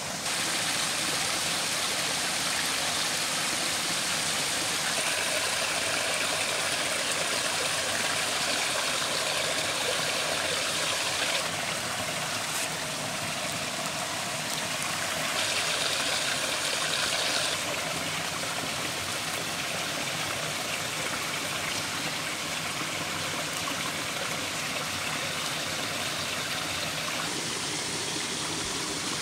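Steady rushing of a flowing forest stream, with a few abrupt small shifts in level.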